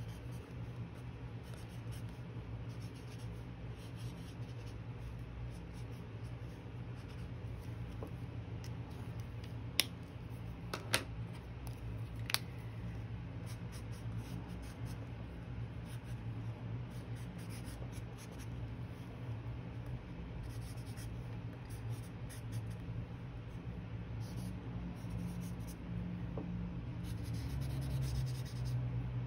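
Colored pencil scratching across watercolor paper in quick, irregular strokes, over a steady low hum. Three sharp clicks come in the middle.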